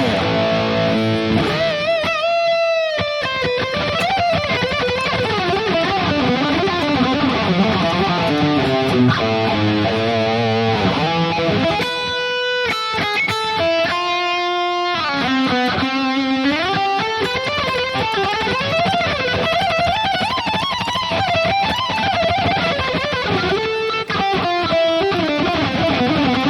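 Distorted electric guitar playing a lead solo: fast runs mixed with long held notes bent and shaken with vibrato.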